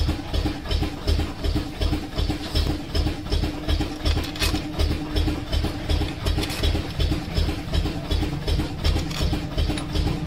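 An engine idling steadily, with an even throb about three times a second over a constant hum.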